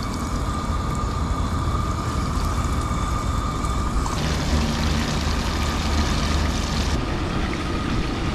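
Battered striped bass pieces sizzling steadily as they deep-fry in a pan of hot oil, the sizzle growing brighter about four seconds in.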